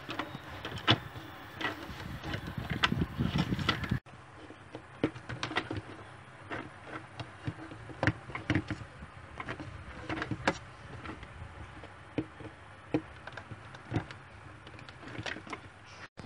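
Scattered light clicks and knocks of hard plastic toys being handled: pony figures pushed into a plastic toy train car on a wooden table.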